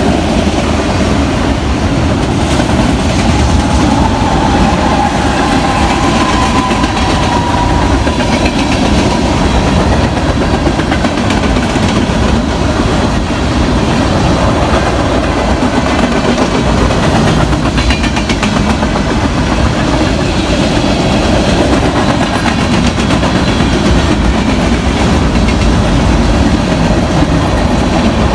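BNSF freight train cars rolling past, with a steady, loud rumble of steel wheels on the rails.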